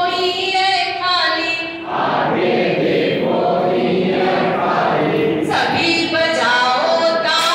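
A group of men and women singing a simple letter-learning action song together in chorus, led by a woman's voice.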